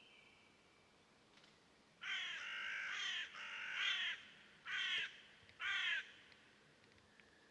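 A bird calling loudly: a two-second run of rapid, scratchy repeated notes, then two short calls about a second apart.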